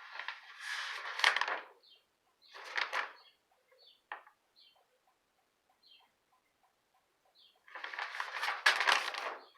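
Papers rustling as they are handled and shuffled through, in bursts, with a quieter stretch in the middle.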